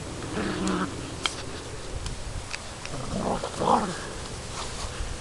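Golden Retriever/Collie/Lab mix puppies play-fighting, giving short whiny growls and yips: one brief sound about half a second in, then a louder cluster about three to four seconds in.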